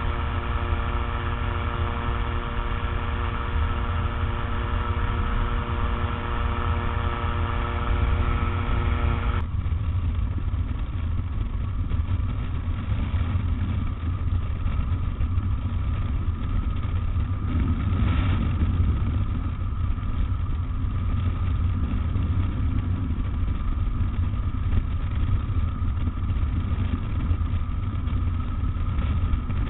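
Rotax 912 flat-four engine of a Tanarg microlight trike running steadily in flight, with wind rushing over the microphone. About a third of the way in, the even engine tone gives way abruptly to a rougher, noisier engine-and-wind sound.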